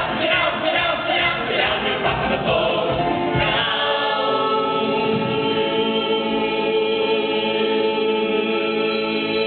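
Musical-theatre ensemble singing a show tune together in chorus. About three and a half seconds in, the rhythmic line gives way to one long chord held by all the voices.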